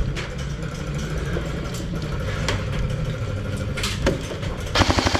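Airsoft gun firing a short rapid burst near the end, preceded by a couple of single sharp cracks, over a steady low rumble of handling and movement noise on the body-worn microphone.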